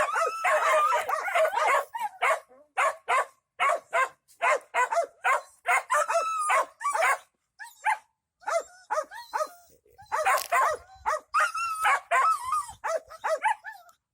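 An animal calling in a string of short, pitched yelps, a few a second, with brief pauses between runs.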